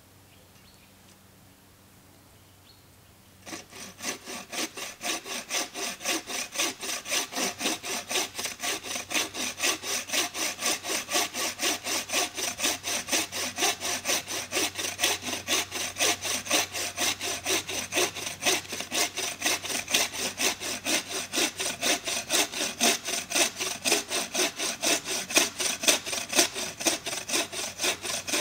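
Wooden frame saw (bow saw with a twisted-cord tensioner) cutting through a fallen log with steady back-and-forth strokes, about two to three a second, starting about three and a half seconds in.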